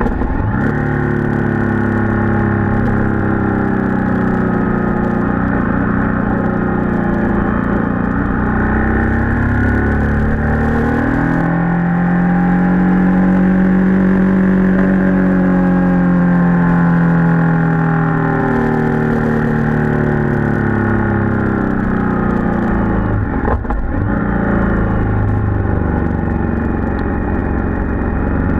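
Motorcycle engine running under way, its pitch slowly sinking, then climbing to a steady higher note for several seconds and falling away again, with a brief dip and recovery near the end.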